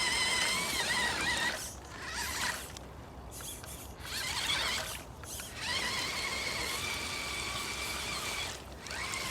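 An FTX Ravine RC crawler's electric drive whining under load as it strains to climb over a branch. The steady whine comes twice, briefly at first and then for about three seconds later on.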